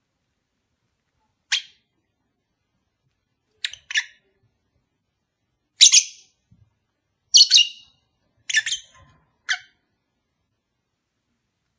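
Lovebirds giving short, shrill chirps and squawks: about six brief calls spread out with silent gaps between, some coming in quick pairs.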